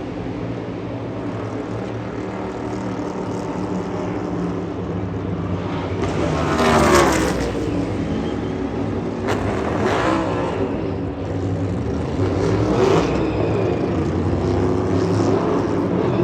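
Race cars running at speed on a speedway: a steady engine drone with several cars passing close by one after another, each pass falling in pitch as it goes by. The loudest pass comes a little under halfway through.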